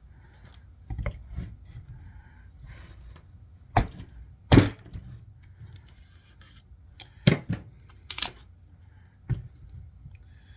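Damascus steel bushcraft knife being batoned through a piece of wood: a wooden baton strikes the blade's spine in about nine sharp, uneven knocks, some in quick pairs, the loudest a little past the middle.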